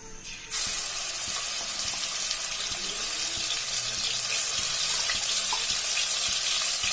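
Ginger paste dropped into hot ghee in a kadhai, starting to sizzle suddenly about half a second in and sizzling steadily on, with a few light clicks.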